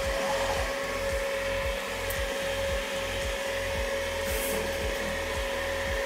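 Steady rushing air noise from a blower or fan, with a constant mid-pitched whine, under background music with a steady bass beat.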